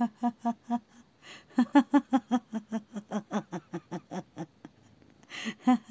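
A woman laughing in a fast run of short "ha-ha" syllables, about five a second, broken by a breathy pause about a second in and breathy gasps near the end.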